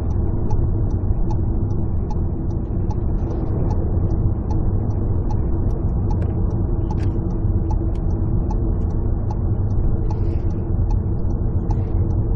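Steady engine and road noise inside a moving vehicle's cabin, with a faint regular ticking about twice a second.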